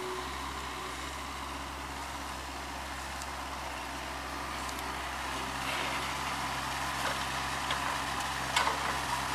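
Komatsu PC40-7 mini excavator's diesel engine running steadily as it digs. From about halfway on, short scrapes and clinks of shovels working gravel and dirt come in over it.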